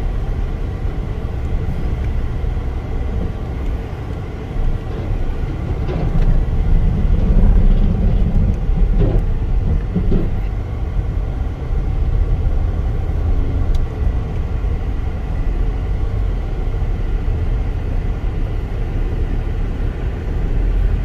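Steady low rumble of a vehicle in motion, growing louder for a few seconds starting about six seconds in.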